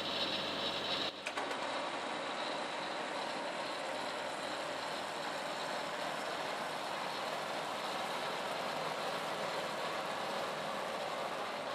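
Mahindra tractor and the small added gas engine of a modified Schulte rear-mount snowblower running steadily together, a constant mechanical din. It dips briefly about a second in, then carries on evenly.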